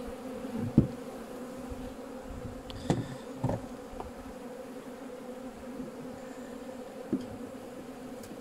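Honeybees in an open hive humming steadily at one low pitch, with a few sharp knocks, the first about a second in being the loudest.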